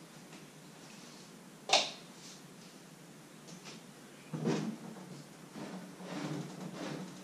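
A single sharp knock about two seconds in, then, in the second half, a clatter and a run of shuffling handling noises as a camera on a tripod is adjusted on a kitchen counter.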